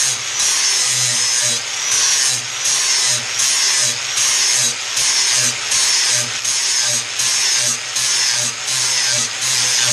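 Angle grinder with a 40-grit flap wheel grinding the edge of a steel lawn tractor mower blade held in a vise: a steady rasping with a high whine, its level dipping about once a second.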